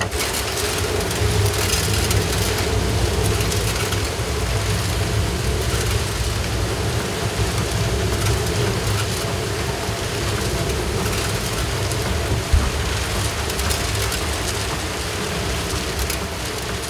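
Water-powered grist mill running: a steady low rumble from the turning millstones grinding grain, with the wooden works rattling and clicking throughout and one sharper knock about two-thirds of the way through.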